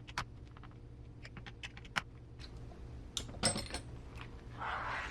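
Small screws, spacers and plastic parts clicking and clattering while the lower half of an RC car's receiver box is being screwed on, with a cluster of rattling clicks about three seconds in and a short scraping noise near the end.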